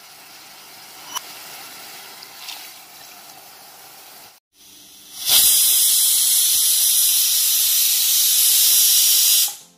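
Vegetables sizzling softly in hot oil in an aluminium pressure cooker pan, with one sharp click about a second in. After a short break, the closed pressure cooker lets off steam with a loud, steady hiss for about four seconds, which cuts off suddenly near the end.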